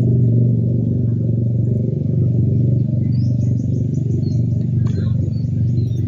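A loud, steady low rumble, with a few faint high chirps in the second half.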